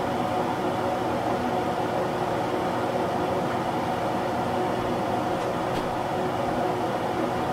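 Steady hum of a kitchen fan running, with a few steady tones in it.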